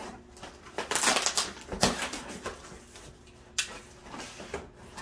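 Box cutter slicing through packing tape on a cardboard shipping box, the cardboard crackling and scraping in several irregular bursts, loudest about a second in.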